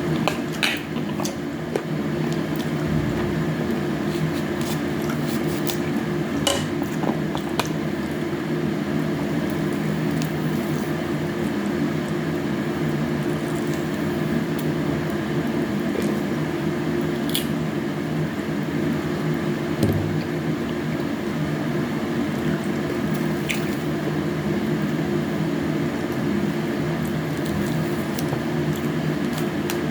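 Wet squishing of juicy honey orange being peeled and eaten close to the microphone, with scattered short sharp clicks, over a steady low hum.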